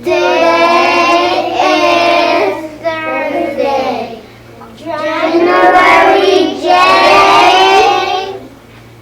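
Young children singing together in phrases, with short breaks between them.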